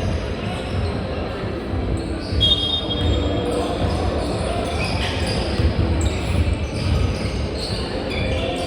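Basketball game in progress: the ball bouncing repeatedly, a short high shoe squeak about two and a half seconds in, and players' voices in the background.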